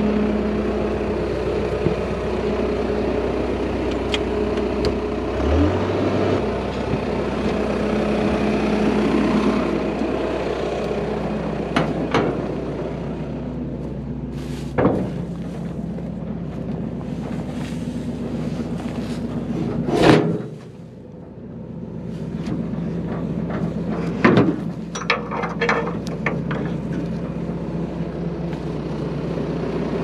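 Goldoni tractor engine running steadily, with several sharp knocks and clunks about 12, 15, 20 and 24 seconds in, the one at 20 seconds the loudest, and a run of smaller clicks just after.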